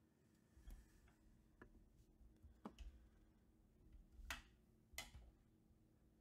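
Near silence: room tone with a low hum and a handful of faint, scattered clicks, the sharpest about four and five seconds in.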